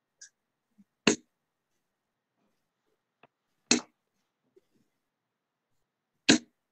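Three darts thrown one after another, each landing in a Winmau Blade 6 sisal bristle dartboard with a short, sharp thud, about two and a half seconds apart.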